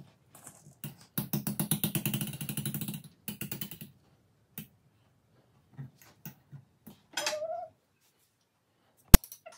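Wire whisk stirring thick cooked Oreo choux dough in a metal saucepan: about two seconds of fast rattling strokes against the pot, a shorter run after, then scattered taps. A short pitched sound comes about seven seconds in, and a single sharp click near the end is the loudest sound.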